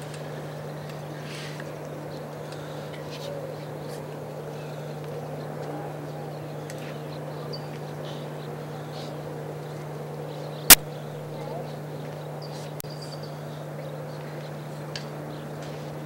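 Outdoor crowd ambience: a standing crowd waiting quietly with a faint murmur over a steady low hum, and a few short high chirps. A single sharp click about two-thirds of the way through is the loudest sound.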